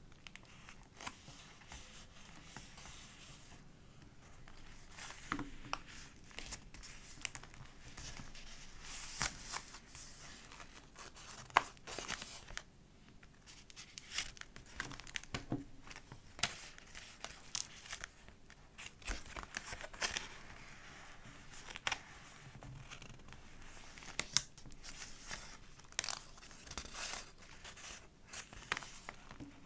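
Pages of a thick collage journal being turned and handled: paper rustling and crinkling with many soft taps and clicks, one sharper click about twelve seconds in.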